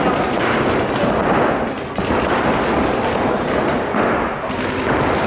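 Paintball markers firing in rapid strings, the shots overlapping into a continuous crackle, with a brief lull about two seconds in.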